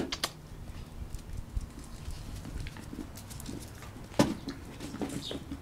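A dog playing with a ball on concrete: light scuffs and patter, with one sharp knock about four seconds in.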